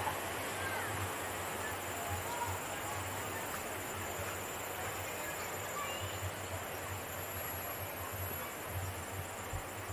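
Outdoor ambience: an even, steady hiss with faint high insect tones and a few short bird chirps.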